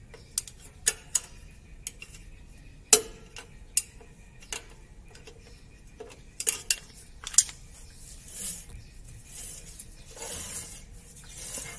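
Sharp metal clicks and clinks as two screwdrivers work the shoe adjuster and its lock through the backing plate of a Kia K2700 rear drum brake, setting the shoe clearance. From about 8 s in, softer scraping swishes as the drum is turned by hand to check that the shoes don't drag.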